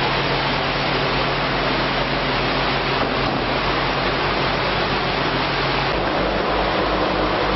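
Steady rushing noise of a large shop fan running, with a low steady hum beneath it.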